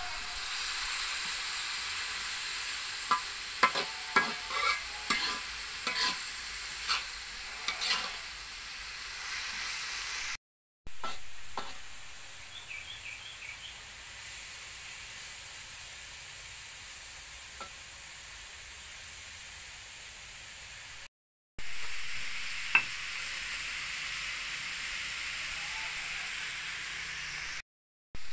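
Shredded young papaya and small dried shrimp sizzling in a metal wok, with a metal spatula scraping and clinking against the pan in a quick run of clicks in the first several seconds. The sizzle runs steadily, softer in the middle, and breaks off briefly three times.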